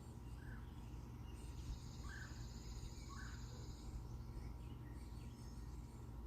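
Outdoor backyard ambience over a low steady rumble: a high, buzzing trill starts about a second and a half in and lasts about two and a half seconds, with three short chirps scattered through the first half.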